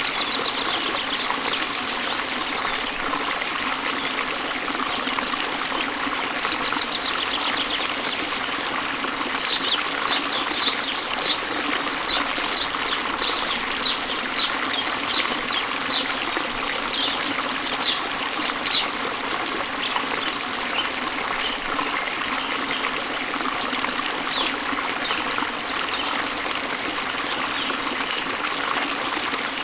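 Waterfall water running with a steady splashing rush. A songbird repeats short high chirps, about two a second, from about ten seconds in until just before twenty seconds, then more faintly and sparsely.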